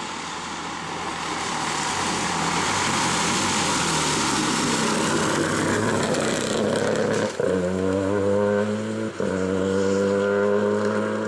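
Renault Clio R3T rally car driven hard past on a mountain stage: its engine and tyre noise builds as it approaches. It then pulls away on a strong, steady engine note, cut twice by brief gear changes in the second half.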